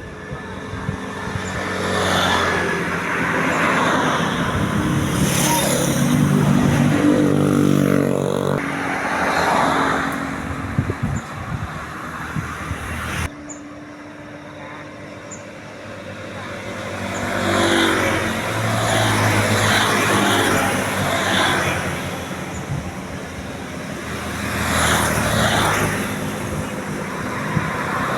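Road vehicles passing one after another, their engine and tyre noise swelling and fading several times. The sound breaks off abruptly about halfway through.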